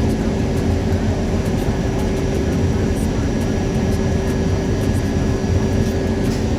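New York City subway train running: a steady, loud rumble of wheels on track with a steady motor hum over it.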